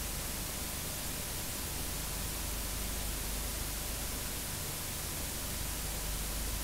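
Steady hiss of a blank stretch of videotape playing back, with a faint low hum beneath it.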